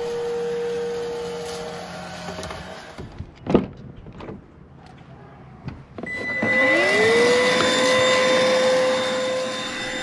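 iwoly C150 cordless vacuum running. After a few quieter seconds with a couple of clicks, its motor starts up about six seconds in, the whine rising quickly in pitch, then settling into a steady high whine.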